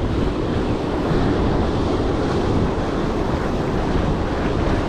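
Surf washing over rocks, with a steady rumble of wind buffeting the microphone.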